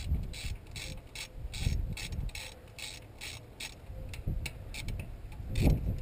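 Hand ratchet with a 10 mm socket clicking steadily, about three to four clicks a second, as a timing chain tensioner bolt is backed out. A few dull bumps come from the tool and hands.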